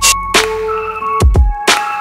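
Background music with a strong drum beat and held melody notes.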